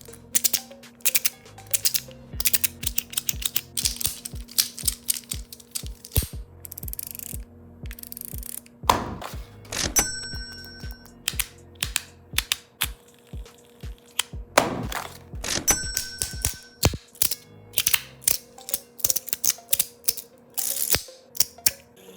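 Fidget toys being handled and pressed: a busy run of sharp clicks and taps, coming in quick clusters, over soft background music.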